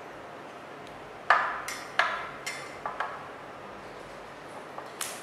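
Sharp metal clinks as a disc brake caliper and its adapter bracket are handled and fitted at a bicycle's rear wheel, about six in a row, the first the loudest, several ringing briefly.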